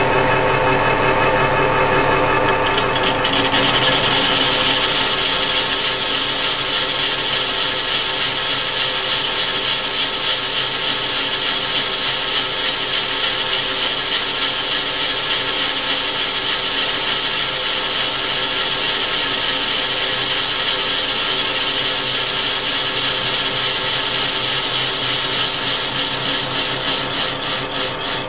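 Metal lathe running, with a boring bar cutting the inside of a cast iron flywheel: a steady machine whine with a high cutting hiss that comes in about three seconds in. Near the end the sound begins to pulse and waver.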